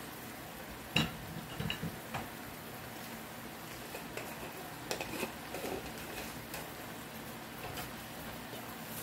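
A pot of sautéed bitter melon sizzling steadily on the stove, freshly drizzled with sesame oil. A few light clinks and knocks of kitchenware, the sharpest about a second in and a couple more around the middle.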